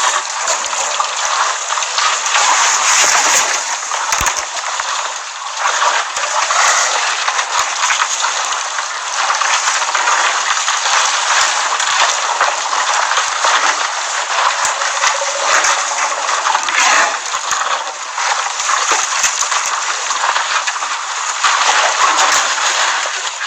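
Water splashing and sloshing without a break as elephants wade and drink at a waterhole, with many small crackling splashes.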